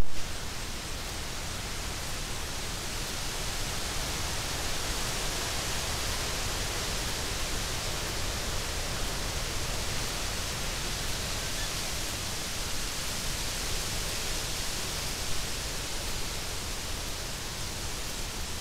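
A steady, even hiss, high in pitch, with a sharp click at the very start.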